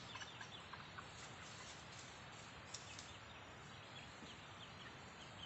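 Faint, scattered high peeps of chickens, short chirps coming every fraction of a second over a steady low hiss.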